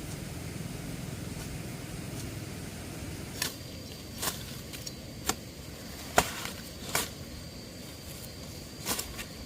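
A low, steady rumble, then from about three seconds in a series of sharp knocks roughly a second apart, the loudest a little past the middle.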